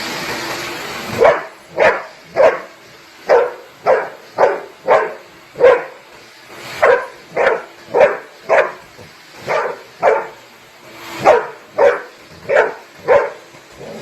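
A dog barking over and over, about two short barks a second, starting about a second in after a brief rushing noise.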